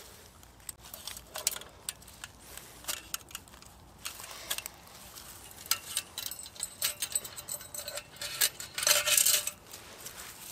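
Light metallic clinks and jingles from handling the brass parts of an Optimus Svea 123R stove: the windscreen going on over the burner and the small control key swinging on its chain. Near the end there is a brief, louder rustle.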